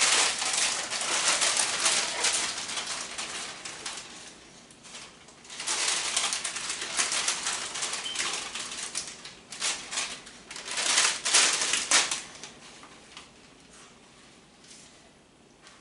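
A spoon folding spinach into creamy orzo in a pan: several bursts of wet stirring and scraping, fading to quiet in the last few seconds.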